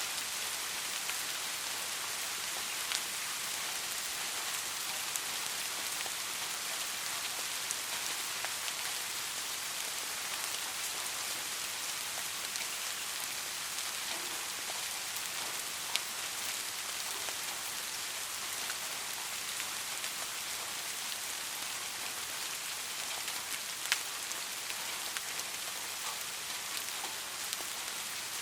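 Steady soft rain: an even hiss of rainfall with scattered single drops tapping sharply, one clear tap about 16 s in and another about 24 s in.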